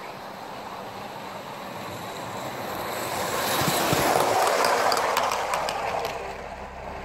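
Garden-scale model steam train running past close by. It grows louder as it approaches, with a quick run of clicks from the wheels on the track as it passes about four seconds in, and falls away about six seconds in.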